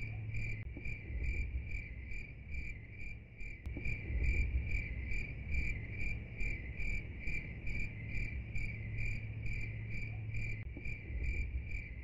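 Cricket-like chirping: an even, high-pitched pulsing trill of about two to three chirps a second, over a low rumble.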